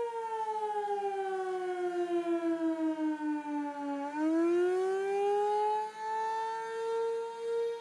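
Outdoor civil-defense warning siren sounding during a test: a steady wailing tone that slides down in pitch for about four seconds, then climbs back up to its original pitch, its loudness wavering rapidly.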